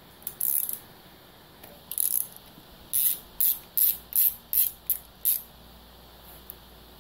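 Hand socket ratchet clicking as it is worked on a bolt holding a bracket on the engine block, loosening it. There are two short bursts of clicking first, then about seven quick back-strokes in a row, roughly three a second.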